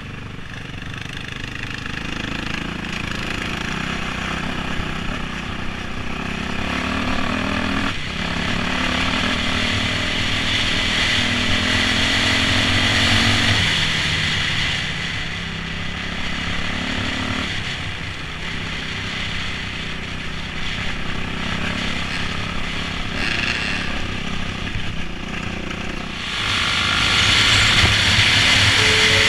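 2008 Yamaha YZ450F's single-cylinder four-stroke engine running under way, its pitch rising and falling with the throttle over the rush of riding noise, getting louder near the end.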